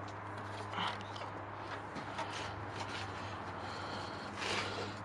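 Faint rubbing and scraping of parts being handled, a few soft rustles, over a steady low hum.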